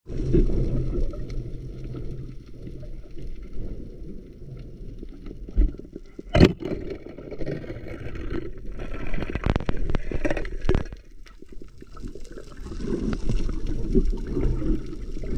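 Muffled underwater sound of water moving and gurgling around a submerged camera as it is swept through the water, with a few sharp knocks about six seconds in and again around ten seconds.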